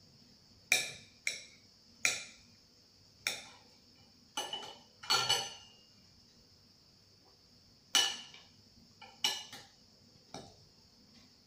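Metal knife and fork clinking against a ceramic plate as a cooked plantain is cut into pieces: about a dozen sharp clinks at uneven intervals, some in quick pairs, with short gaps between.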